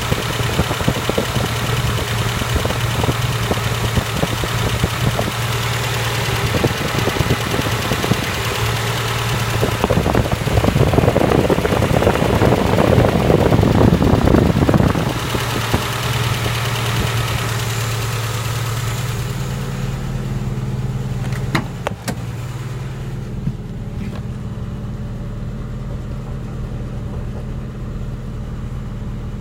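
ZAZ Tavria/Slavuta engine idling with a steady low hum while the electric radiator cooling fan runs, adding a rushing noise. The rushing noise grows louder and rougher for a few seconds around the middle. About two-thirds of the way through it dies away, followed by a couple of sharp clicks, leaving only the engine running.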